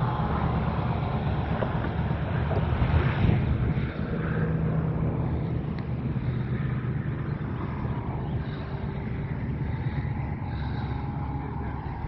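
Engine running with a steady low drone under a wash of wind-like noise, slowly fading.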